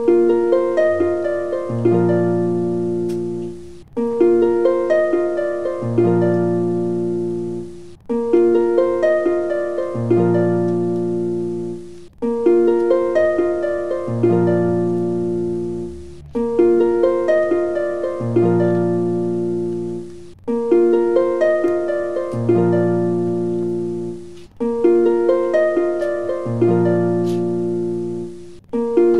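Background music: a short plucked-string phrase that loops, restarting about every four seconds.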